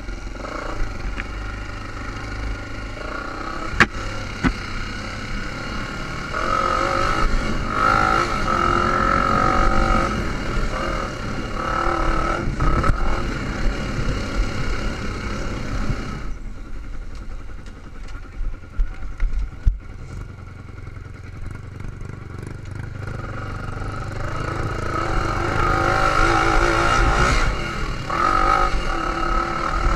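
Dirt bike engine running under throttle as it is ridden, revving up and easing off; it drops back for several seconds past the middle and builds again near the end. A few sharp knocks come through from the bike over bumps.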